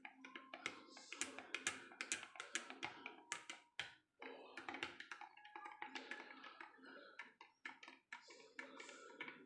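Metal spoon stirring a drink in a glass tumbler, clinking against the glass several times a second, some clinks leaving a short ringing tone.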